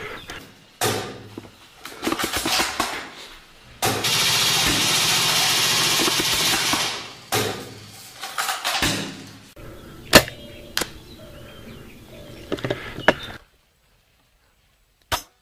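Airsoft game sounds: a scatter of sharp clicks and cracks of shots, the loudest about ten seconds in, with a steady rushing noise for about three seconds near the middle. One more crack comes after a short silence near the end.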